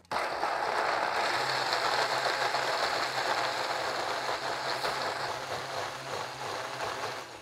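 Countertop blender running at full speed, pureeing chopped peppers, carrots and garlic in vinegar. The motor kicks in abruptly and runs steadily with a low hum under a dense whirring churn, easing off a little near the end.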